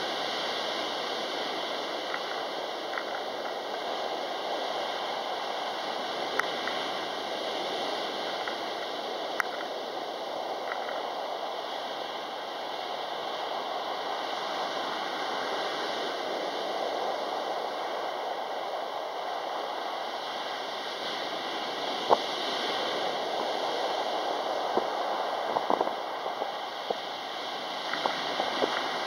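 Sea waves breaking on a pebble beach and washing up the shore: a steady rush of surf that swells and eases with each set, with a few scattered sharp clicks.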